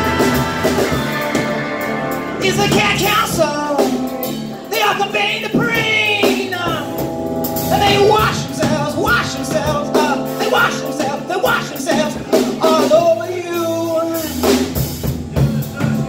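Live rock band playing with drums, electric guitar, electric bass and keyboard. From a few seconds in, a lead line of sliding, bending notes runs over the band.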